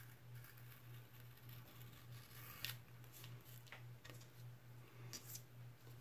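English bookbinder's skiving knife being pushed along the edge of thick vegetable-tanned leather: a few faint, short scraping cuts, the sharpest about two and a half seconds in, over a low steady hum.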